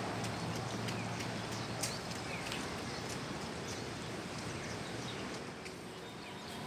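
Wild sikatan londo flycatcher calling: scattered short sharp ticks and a few brief falling chirps over a steady outdoor background hiss.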